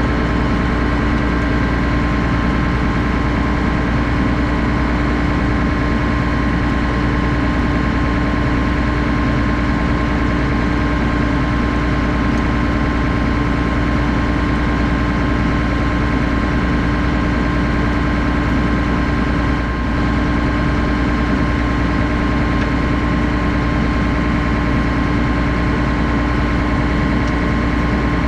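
Combine harvester running steadily: a constant loud drone with a steady whine over it.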